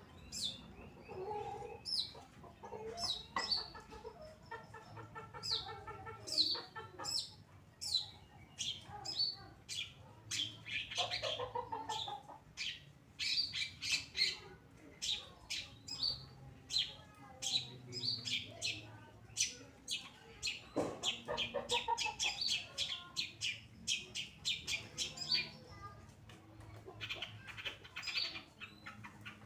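Long-tailed shrike (cendet) singing vigorously: a rapid string of sharp, high, downward-sweeping notes mixed with harsher, lower chattering phrases.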